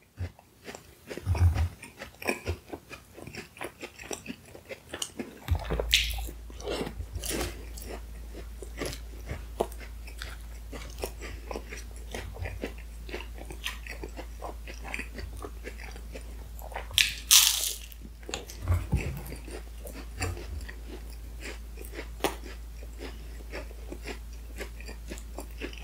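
Close-up biting and chewing of baklava, the flaky phyllo pastry crunching in many small, irregular crackles.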